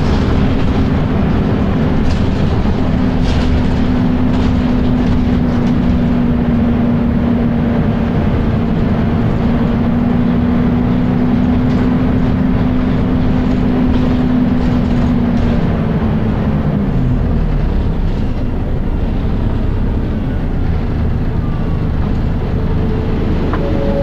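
Volvo B10BLE bus running, with a loud, steady hum from its cooling fan over the engine noise. About two-thirds of the way through, the hum drops in pitch and fades away.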